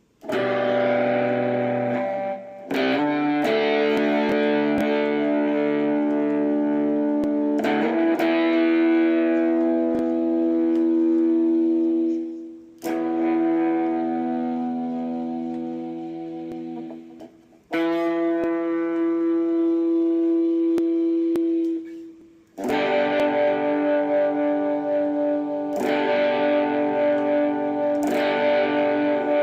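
Repaired Epiphone SG Junior electric guitar play-tested through a distorted amp: six chords struck a few seconds apart, each left to ring out, the last one wavering.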